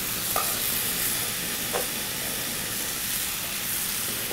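Marsala wine and chicken stock sizzling steadily in a stainless steel sauté pan on a gas burner. Metal tongs clink lightly against the pan twice as sliced mushrooms go in.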